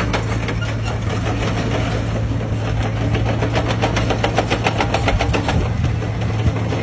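Heavy diesel engine running steadily, a constant low hum with a fast, even clatter over it.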